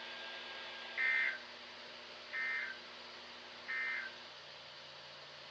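Three short digital data bursts, about a second and a half apart, from a weather radio receiver: the SAME end-of-message code that closes a NOAA Weather Radio Required Weekly Test.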